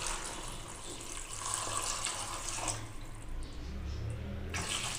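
Water poured from a jug into a cooking pot of macaroni and vegetables, splashing steadily for nearly three seconds, then a second short pour near the end.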